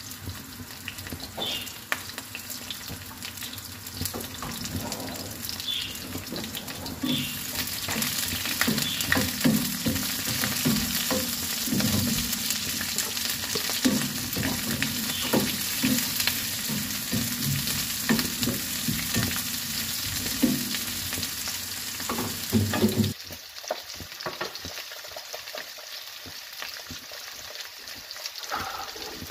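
Onion, garlic and then carrot, celery and bell pepper strips sizzling in oil in a nonstick frying pan, with a wooden spatula stirring and knocking against the pan. The sizzle gets louder about seven seconds in and quieter a few seconds before the end.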